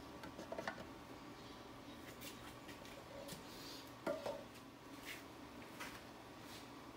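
Faint scattered clicks and clinks of small hard objects being handled, with a short cluster just after the start and the loudest knock about four seconds in, over a steady low hum.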